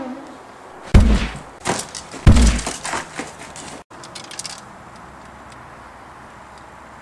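Two loud booming bangs about a second and a half apart, with lighter knocks after them. A few faint clicks follow, then a steady low background.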